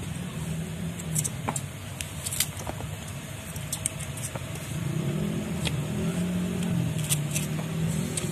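A motor engine running steadily, its low hum wavering in pitch from about halfway through. Scattered short, sharp clicks of a knife cutting into firm kedondong fruit sound over it.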